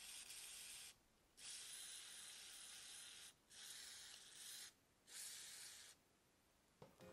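Aerosol spray can hissing through a thin extension straw in four short bursts, the second and third the longest.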